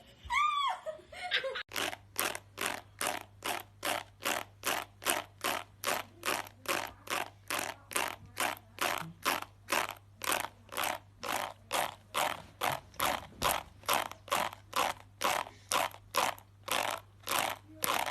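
Fingers or a fingernail dragged across the plastic teeth of a comb, over and over at an even pace of about two to three strokes a second. This is the scraping sound that is said to make cats gag. The strokes start about two seconds in, after a brief pitched sound.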